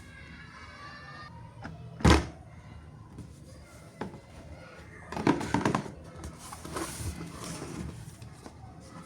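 Handling noise from toys and their packaging: one sharp knock about two seconds in, then bursts of clattering and rustling around five and seven seconds, with small clicks between.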